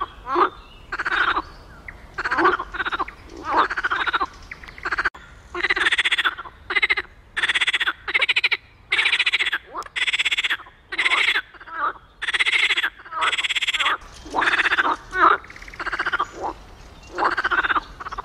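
Marsh frog (Pelophylax ridibundus) croaking: a long run of short rattling calls, about one a second, with somewhat longer calls in the middle stretch.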